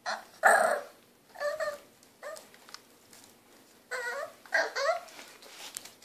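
French bulldog puppy whining and yipping impatiently, about six short calls that bend in pitch, the loudest near the start and a quick pair about four seconds in.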